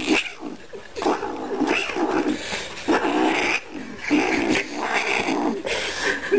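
A kitten yowling in a string of short bouts, each about half a second to a second and a half long, while it bites at a cigarette held to its mouth.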